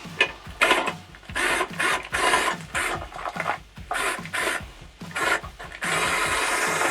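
A series of rough scraping strokes, about seven of them at uneven intervals, the last one the longest.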